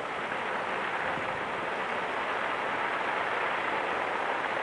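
Fireworks display crackling as a steady dense hiss, with no single distinct bang.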